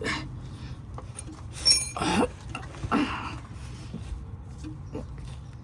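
Ratchet and size 19 socket clinking against metal while being worked on the VTM sensor of a 2007 Honda Pilot rear differential to break it loose. There is one sharp, ringing clink a little under two seconds in, then a few short knocks and scrapes.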